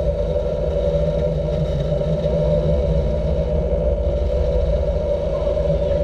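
Fishing boat's Volvo Penta engine running steadily at trolling speed, a constant drone over a low rumble.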